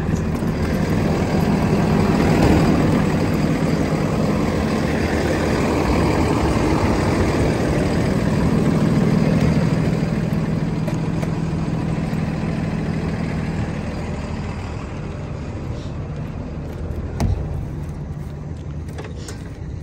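School bus engine idling steadily, louder in the first half and growing fainter over the last several seconds. A single sharp click about seventeen seconds in.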